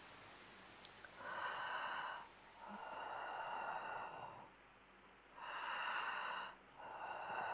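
A person breathing heavily: four slow breaths, each about a second long, coming in two pairs.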